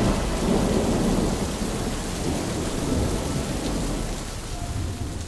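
Heavy rain in a thunderstorm over a deep, continuous rumble; the whole storm sound slowly fades toward the end.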